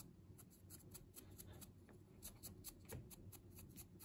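Faint, quick scratching of a dry-brush's bristles scrubbed back and forth over a sand-textured miniature base, several light strokes a second.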